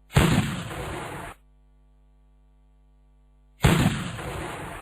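Cannon shot sound effect played twice, a few seconds apart. Each blast starts suddenly with a heavy boom, fades into rumble and is cut off abruptly after about a second.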